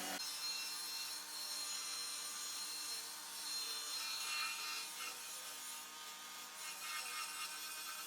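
Steady scratchy abrasive rubbing by hand, swelling and easing in uneven strokes.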